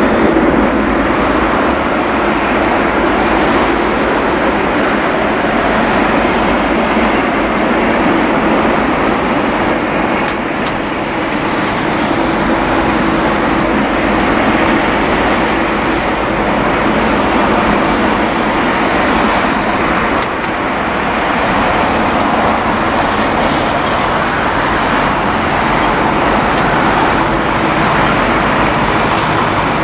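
Airbus A380-841's four Rolls-Royce Trent 970 turbofans running at low power, a loud, steady jet engine noise with a low hum, holding even throughout.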